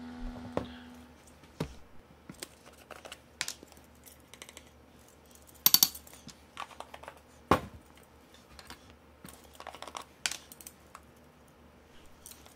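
Scattered light clicks and taps of spice jars and a metal measuring spoon being handled while seasonings are added to a pot, with a brief rattle of rapid clicks about halfway through.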